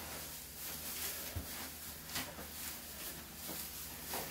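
Dry pine wood shavings rustling as they are poured from a plastic scoop into a plastic tub and spread by hand.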